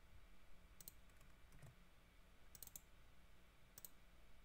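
Faint, sharp clicks from computer mouse and keys, a handful spread over a few seconds, over a low steady room hum.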